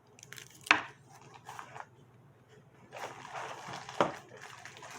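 Rustling and handling of packaging while accessories are taken out of a box, with a sharp knock or click about a second in and another near the end.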